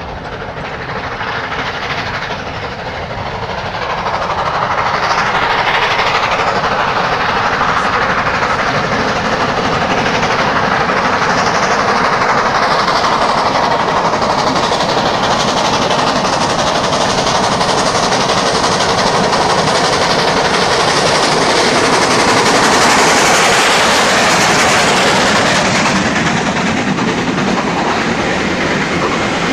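Two GWR four-cylinder 4-6-0 steam locomotives, a King and a Castle, working hard at the head of a passenger train as it approaches and passes close by, with the carriages rolling past near the end. The sound builds over the first few seconds, then stays loud and steady.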